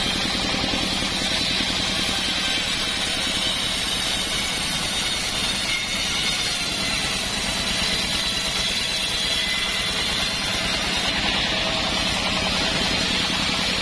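Engine-driven mobile band sawmill running steadily, its band blade cutting lengthwise through a log of very hard acacia wood under heavy load.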